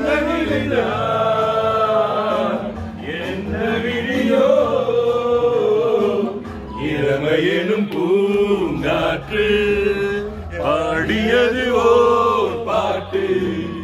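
Several men's voices singing together in chorus, holding long notes that bend up and down in pitch, with short breaks between phrases.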